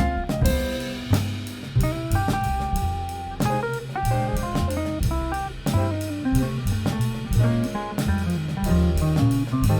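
Instrumental small-group jazz: drum kit with cymbals keeping time under a moving bass line, and a lead instrument playing melodic phrases that hold one long note a couple of seconds in.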